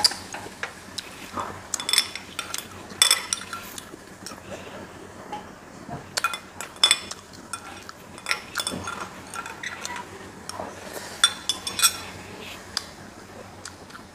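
Metal spoon clinking and scraping against a glass bowl of food, in scattered clusters of sharp clinks with brief ringing.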